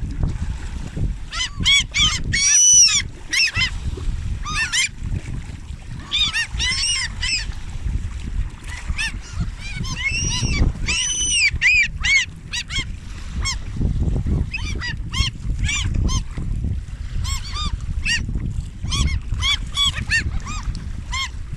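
A flock of geese honking: many short, arched calls, overlapping in bunches throughout, over a low rumbling noise.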